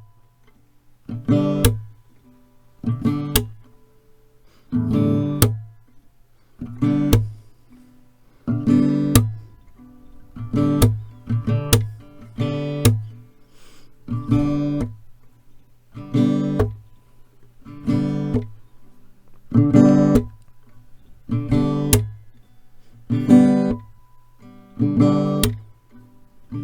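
Acoustic guitar strummed alone, one chord about every two seconds, sometimes two strokes close together, each chord left to ring and fade before the next.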